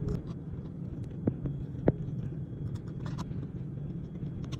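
Two sharp clicks, a little over a second in and again about half a second later, over a steady low hum.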